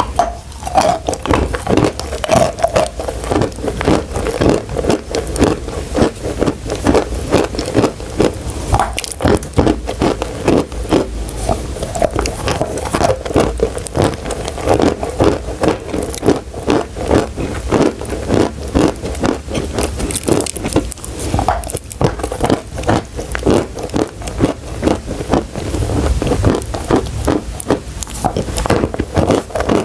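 Chalk and clay crunching close to the microphone: a dense, unbroken run of crisp crunches and scrapes, several a second.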